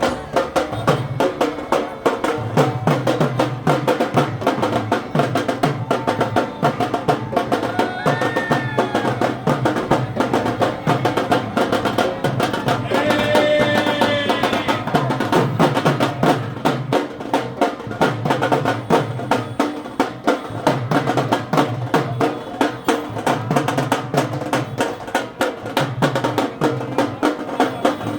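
Festival procession drums beating a fast, steady rhythm, with a short pitched tone sounding over them about halfway through.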